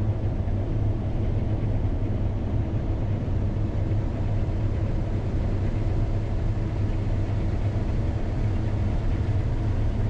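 Engine of heavy harvest machinery running steadily at constant speed, a low, even drone.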